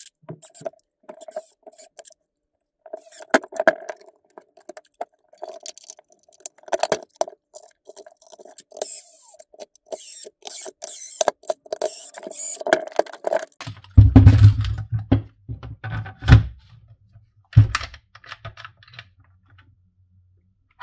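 Milwaukee M12 Fuel cordless impact driver running in short spurts, driving screws to close up the charger's plastic housing. About two-thirds of the way through come several heavy knocks of the case being handled, with a low steady hum underneath.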